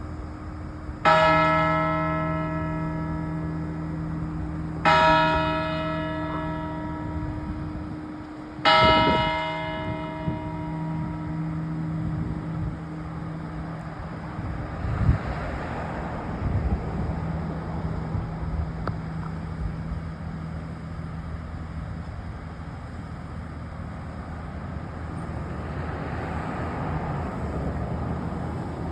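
Church bell struck three times, about four seconds apart. Each stroke rings out with many overtones and fades slowly, and a low hum note lingers long after the last stroke.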